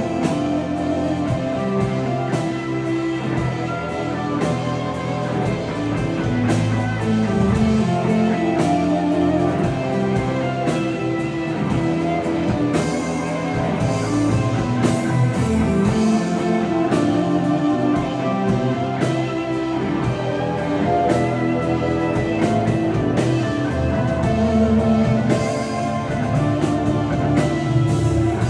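Live rock band playing an instrumental passage, guitar over a steady drum kit beat, with no singing.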